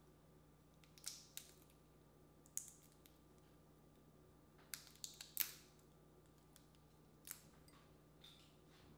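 Boiled crawfish shells cracked and peeled apart by hand: irregular sharp cracks and crackles, a cluster of them about five seconds in being the loudest, with faint room tone between.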